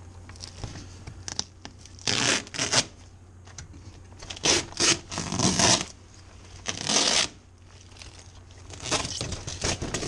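Foil-faced material being ripped and pulled away by hand from the metal collar of an insulated duct supply box, in four bursts of tearing and crinkling.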